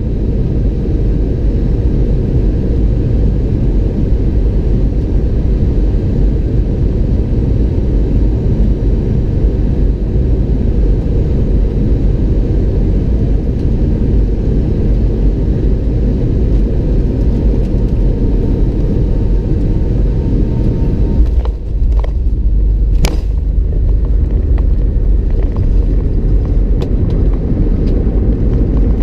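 Loud, steady low rumble inside the cabin of an Airbus A319-100 moving near the end of its flight. A few sharp knocks come about two-thirds of the way through.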